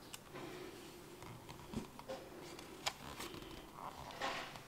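Quiet paper handling: a book page is turned by hand and pressed flat, with a few soft clicks and a brief rustle near the end.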